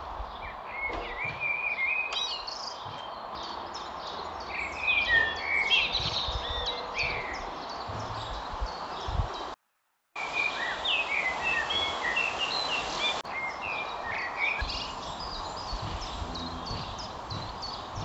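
Several songbirds chirping and singing, quick repeated high chirps and short warbling phrases, over a steady outdoor background hiss. The sound cuts out completely for about half a second near the middle.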